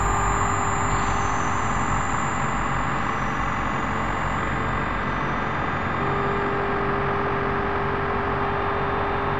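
Synthesized electronic drone from a Max patch sonifying dog photographs: a dense, steady, rumbling noise wash with held tones layered over it. One high tone gives way to another in the first second or so, and a low held tone enters about six seconds in.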